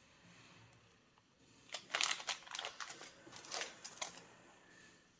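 Packaging being handled and crinkled open by hand: a cluster of crackly rustles starting a little under two seconds in and dying away before the end.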